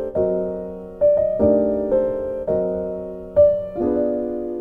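Background music: slow piano chords, each struck and left to ring and fade, the last one held near the end.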